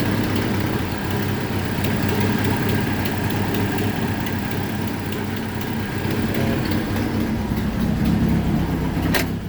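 1995 Jeep Wrangler engine idling steadily while it warms up to bleed trapped air from the cooling system, with a short click near the end.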